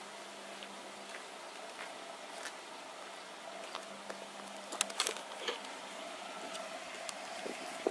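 Quiet steady background hiss with a faint hum, and a cluster of knocks and clicks about five seconds in as the camera is picked up and handled.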